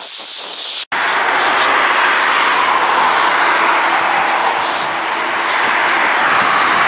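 Steady rushing noise of riding a bicycle along a busy road: wind and road noise, cut off abruptly about a second in, then coming back louder.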